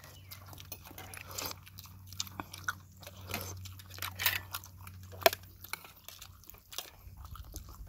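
People chewing and biting into chicken, close to the microphone, with scattered sharp clicks; the loudest click comes about five seconds in.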